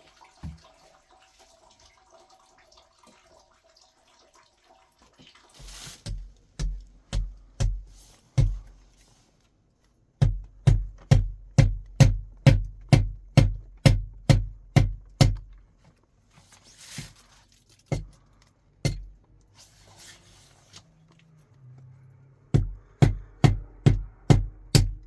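Background music with a steady heavy beat, about three beats a second. It comes in about six seconds in, drops out for a few seconds past the middle, and resumes near the end.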